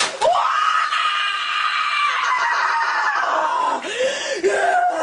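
A teenage boy's long, high-pitched scream, cut into a sound-collage remix, that rises and then slowly falls in pitch, followed by a few shorter cries about four seconds in.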